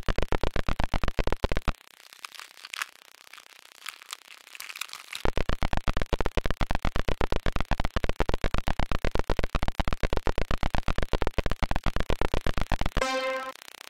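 Electronic film score: a fast, even pulsing of synthesized noise. It drops out for about three seconds near the two-second mark, leaving only faint high sounds, then comes back. Near the end it gives way to a keyboard melody.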